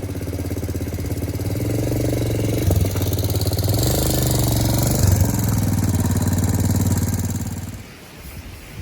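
Motorcycle engine running steadily, its pitch shifting twice, then fading out near the end; plausibly the Suzuki Grasstracker Big Boy's single-cylinder engine.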